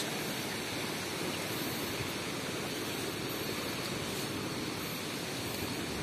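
Steady rushing of sea surf washing onto the shore, an even noise with no separate events.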